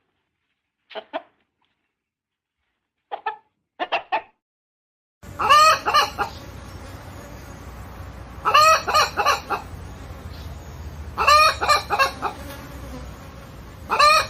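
Chickens calling: short soft clucks in pairs for the first few seconds. Then, about five seconds in, louder hen calls over a steady background hiss, coming in bursts of several notes roughly every three seconds.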